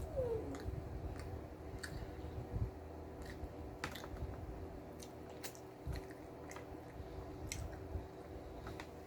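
Close-miked chewing of a BLT sandwich: irregular wet mouth clicks and soft crunches, over a steady low hum.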